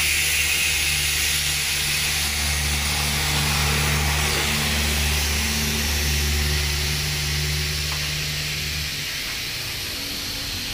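Automatic tire changer working the bead breaker on a car tire: a steady hiss of compressed air over a low motor hum that stops about nine seconds in.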